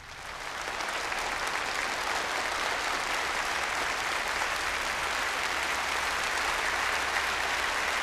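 Large audience applauding in a hall, building over the first second and then holding steady.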